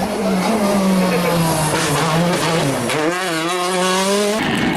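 Rally car engine running hard at high revs, heard from inside the car, with tyres squealing through a corner about three seconds in. The sound changes abruptly near the end.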